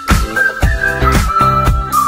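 Upbeat background music with a steady beat of about two hits a second under a high, thin lead melody.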